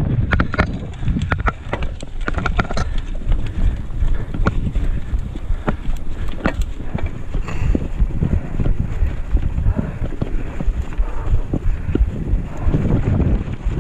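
Wind buffeting the microphone over a mountain bike rattling along a bumpy dirt trail, with frequent sharp clicks and knocks from the bike as it rides over rough ground.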